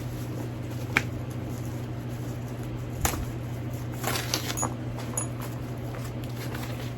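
A handbag being handled: soft rustling with a sharp click about a second in and another about three seconds in, then a cluster of rustles and clicks around four to five seconds, over a steady low hum.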